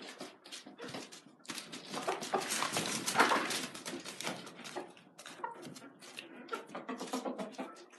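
Young Asil and Yokohama chickens in a wire pen making short, irregular calls and scuffling sounds, busiest and loudest about two to four seconds in.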